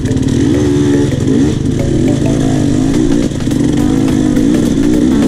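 Enduro motorcycle engine running loud, its revs rising and falling over and over as it is ridden.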